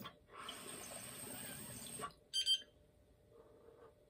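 Water bubbling in a glass bubbler as a dab is drawn through it for about two seconds, stopping abruptly. A short electronic double beep follows just after.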